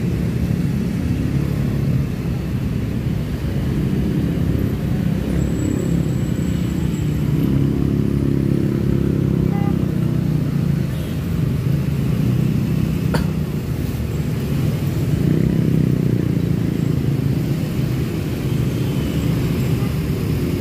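Slow uphill traffic of cars and motorcycles, engines running in a steady low rumble. The engine hum swells twice, about a third of the way in and again past the middle, as vehicles pull up the climb.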